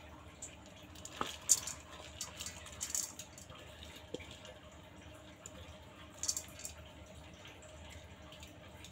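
Wet red lentils poured from a bowl onto chopped ash gourd in a pot: a faint, scattered pattering of grains landing for the first few seconds, with a few more light ticks later on.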